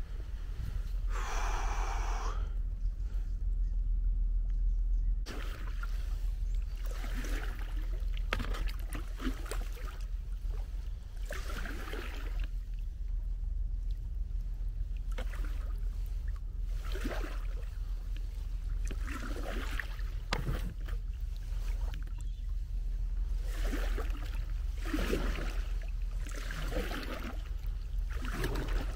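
Kayak paddle strokes, a dip and swish in the water every one to two seconds, over steady low wind rumble on the microphone. There is a short pitched sound about a second in.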